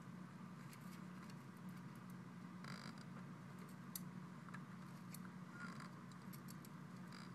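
Faint steady low hum of a small aquarium filter running in the turtle tank, with a few faint clicks and two short rustles, one about a third of the way in and one at the end.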